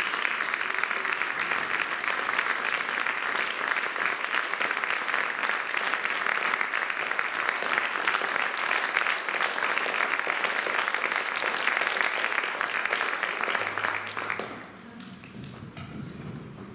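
Concert-hall audience applauding steadily; the applause dies away about fourteen and a half seconds in, leaving a faint low steady tone.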